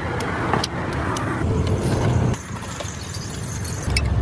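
Motor vehicle noise with scattered sharp metallic clicks. The rumble drops a little past halfway, and a low engine hum comes back in near the end.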